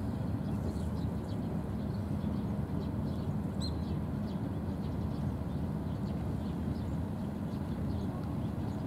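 Steady low outdoor rumble, with faint scattered ticks and one short high chirp about three and a half seconds in.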